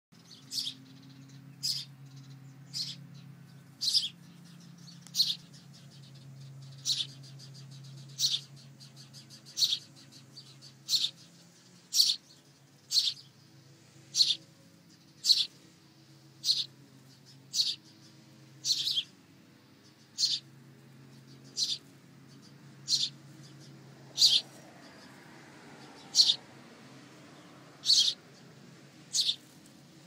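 A bird chirping over and over, short high-pitched chirps about once every second or so, at a ground nest of young birds.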